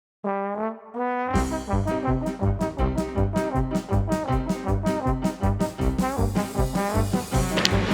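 Upbeat background music with brass, trombone and trumpet, over a steady drum beat that comes in about a second in.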